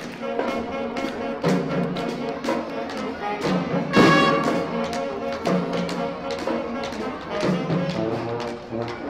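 Young elementary-school marching band playing a song: brass over a steady drum beat. There is a loud accent about four seconds in.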